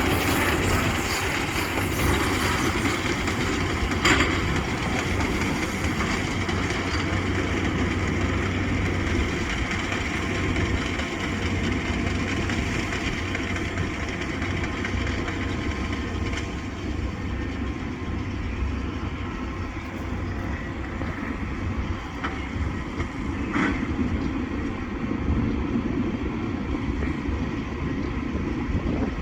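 New Holland T7.185 tractor running with a baler working behind it: a steady engine hum and machinery clatter. A sharp clack comes about four seconds in and another near the end.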